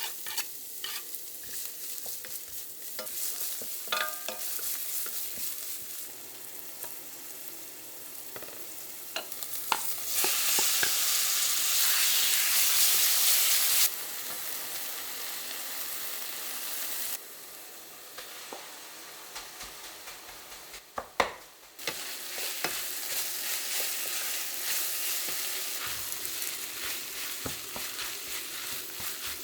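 Food sizzling in a hot frying pan while being stirred, with scattered scrapes and clicks of the utensil against the pan. The sizzle is loudest for a few seconds in the middle and jumps in level abruptly several times.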